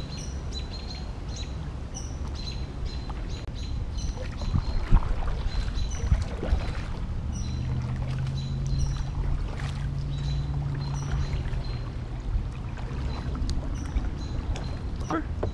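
Kayak paddle dipping and splashing through calm floodwater, with two sharper splashes or knocks about five and six seconds in. A bird chirps repeatedly over the paddling.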